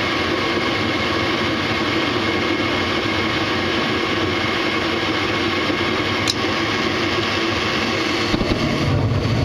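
Gas furnace firing just after ignition, its draft inducer fan and newly lit burners making a steady rushing noise. There is a single sharp tick about six seconds in, and a deeper rumble joins near the end. The furnace is firing normally on a newly replaced control board, the old one having been found bad.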